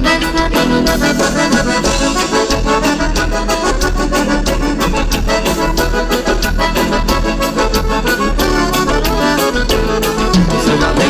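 Live gaúcho dance music with no singing: an accordion leads an instrumental passage over a steady, quick band beat.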